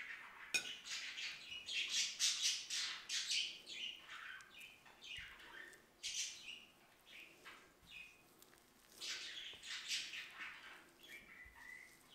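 Silicone spatula stirring and scraping soft cream filling around a ceramic bowl, in irregular strokes. Birds chirp in the background.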